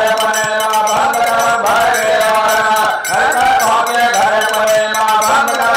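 Male folk singers holding a drawn-out, chant-like sung line of a nagada birha song, with regular percussion strokes underneath.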